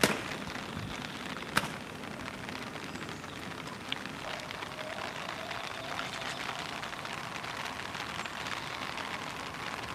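Steady rain pattering on surfaces, with one sharp knock about a second and a half in.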